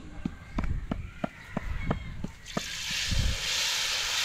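A run of about seven short, sharp knocks, roughly three a second. From about two and a half seconds in, a steady hiss of battered fish and shrimp with taro frying in hot oil takes over.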